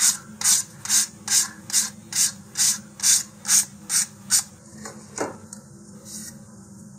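Sanding tee rubbed back and forth along the edge of a paper-laminated balsa fin: quick, even sandpaper strokes, a little over two a second, feathering the paper skin into the wood. The strokes stop about four and a half seconds in, with one more stroke a moment later.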